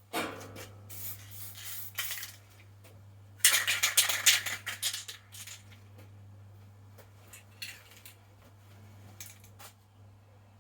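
Aerosol spray paint can in use: short bursts of spray hiss, with a louder spell of rattling metallic clinks about three and a half seconds in, then two shorter bursts later on.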